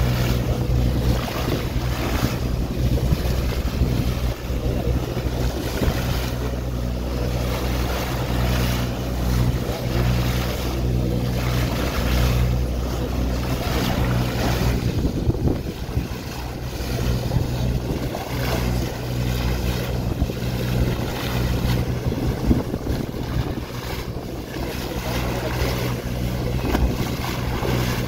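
Boat under way: steady low engine hum under the rushing and splashing of the bow wave, with wind buffeting the microphone.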